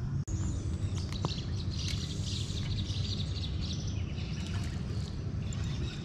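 Small birds chirping over a steady low rumble.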